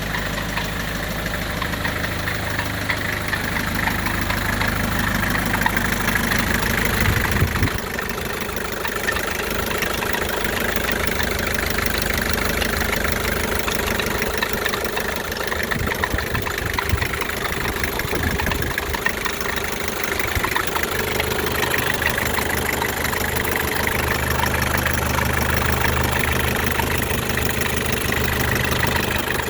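1984 Isuzu P'up diesel engine idling steadily, making a noise the owner cannot identify. Its deep low note drops away about seven seconds in and comes back strongly after about twenty seconds.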